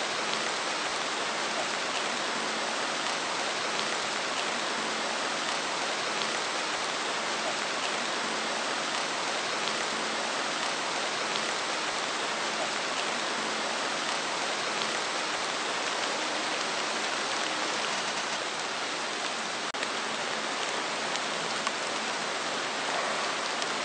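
Heavy rain falling, a steady even hiss with no letup.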